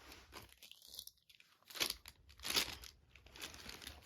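Plastic blind-bag packaging crinkling and tearing as it is handled and opened, in short bursts about two seconds in and again just after.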